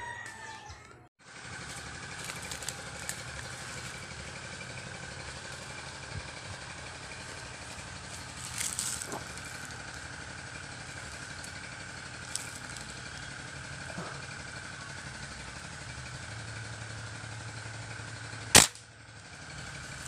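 Steady outdoor background hum, then near the end a single sharp, loud shot from a scoped hunting rifle.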